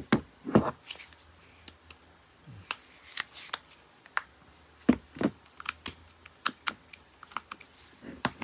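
Hand-held air impact wrenches being handled and set side by side: scattered sharp clicks and knocks of the tool bodies and hands, with no motor running.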